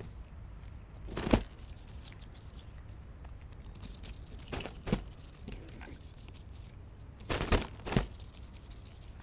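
Mute swans feeding at the ditch bank, their bills working at plants and water: four short, sharp noises, one about a second in, one midway and two close together near the end.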